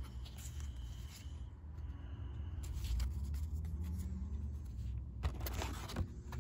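Trading cards being handled and shuffled by hand over a low rumble, with a faint slowly rising hum in the middle. About five seconds in, louder scratchy rustling and clicking as the cards are set down and the packaging is handled.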